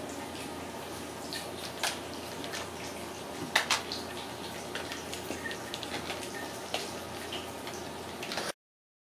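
Ragdoll kittens playing with a hanging coiled spring toy: scattered light clicks and taps from the spring and their paws over a steady hiss, with one sharper click about three and a half seconds in. The sound cuts off shortly before the end.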